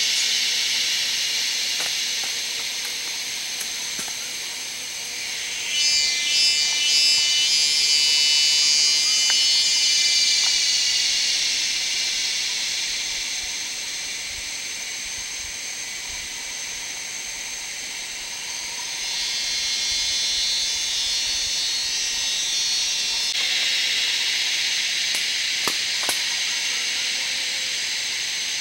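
Cicadas buzzing: a steady, high drone, swelled by a fast pulsing call about six seconds in and again past the middle.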